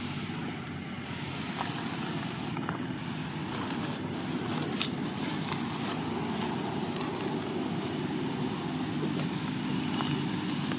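Steady low drone of a motor vehicle's engine, growing a little louder, with a few sharp clicks scattered through it.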